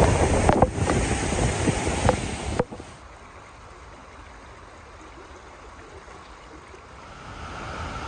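Loud, steady roar of water falling and splashing at the foot of a waterfall close by, with wind on the microphone. About two and a half seconds in it cuts off suddenly to a much quieter, steady hiss of the waterfall heard from far off, which grows a little louder near the end.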